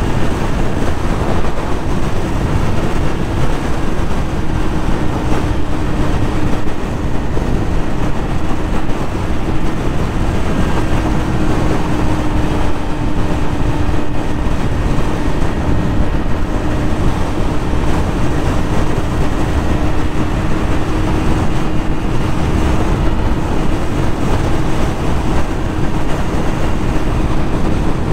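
Yamaha YZF-R6 sport bike's 600 cc inline-four engine running at a steady freeway cruise, its note holding and slowly easing lower, under heavy wind rush on the microphone.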